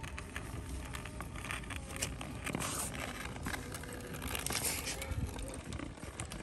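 A small wooden toy cart's rubber wheels rolling over gritty concrete, giving an uneven crackle of small clicks and scrapes.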